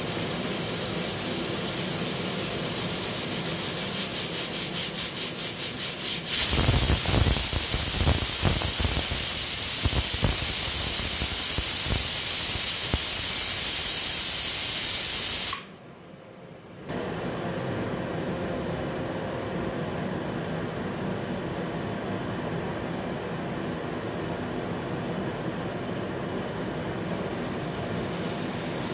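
Stovetop pressure cooker letting off steam through its whistle weight: the hiss sputters in quick pulses as the weight begins to lift, then becomes a loud, sustained whistle of escaping steam, the sign that the cooker has reached pressure. About halfway through the whistle cuts off suddenly, and a softer steady hiss follows.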